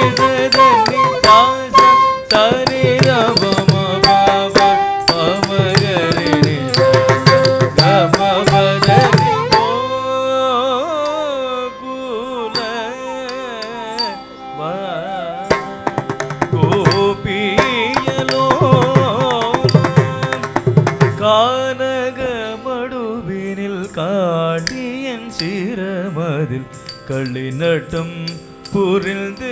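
Carnatic music accompanying a Bharatanatyam dance: a wavering melodic line over hand-drum strokes. The drumming is dense for the first third, thins out in the middle, and picks up again.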